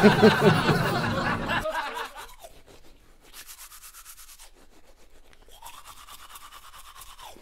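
Faint rhythmic scraping as a boy's hair is cut for the chaula rite, following louder voices in the first second or two.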